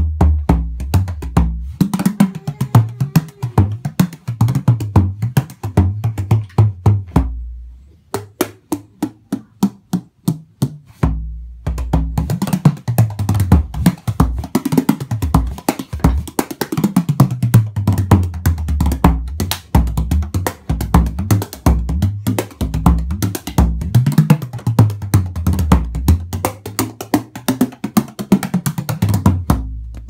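16-inch Michael Vignoles tunable bodhrán played with a tipper in a fast, continuous stream of strokes, its deep tones rising and falling in pitch. For a few seconds about a third of the way in the strokes thin out and grow quieter, then the full rhythm picks up again and stops at the very end.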